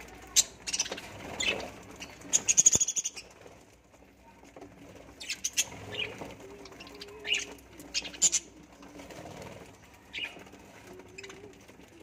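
A flock of budgerigars chirping in short, sharp calls scattered through, with a quick flutter of wings about two and a half seconds in.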